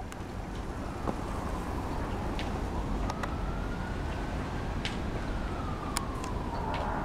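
An emergency-vehicle siren wailing, its pitch rising and falling slowly every few seconds, over a steady low rumble. A few short, sharp ticks sound over it.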